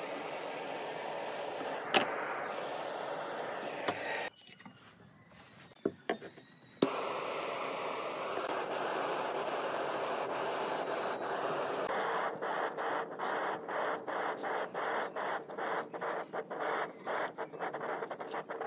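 Handheld butane torch hissing steadily as its flame scorches the edges of a cut pine gear. The hiss drops out for about two seconds, with a few sharp clicks in the gap, then resumes. Over the last several seconds it flutters rapidly.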